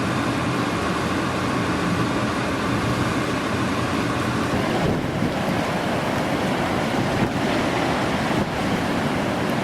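Hurricane Sandy's strong wind buffeting the microphone with a steady rush of surf and water; a faint steady hum underlies the first half and fades about halfway through.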